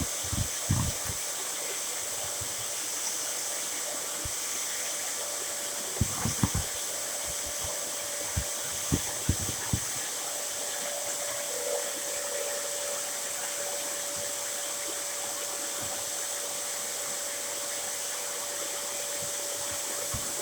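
Dyson DC07 upright vacuum cleaner running steadily with a constant rushing hiss of air, broken by scattered short knocks in the first second and again around the middle. A faint steady whine joins about halfway through.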